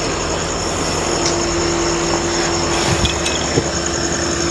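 A car engine idles steadily under a constant high whine, and a steady hum joins in about a second in.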